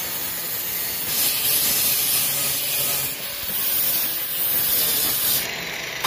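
Angle grinder with a cut-off disc cutting through perforated galvanized steel cable tray: steady grinding of the disc in the sheet metal, with a brief dip about three seconds in, easing off about five and a half seconds in.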